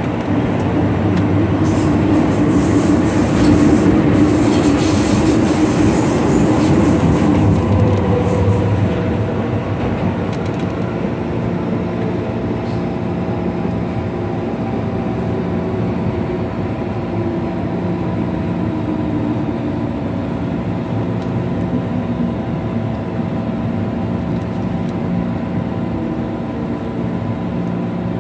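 MTR M-train (Metro Cammell electric multiple unit) heard from inside the car, pulling into a station: loud wheel and rail noise for the first several seconds, easing off about nine seconds in as the train slows, then a steady hum with a low whine that falls slowly in pitch as it brakes toward a stop.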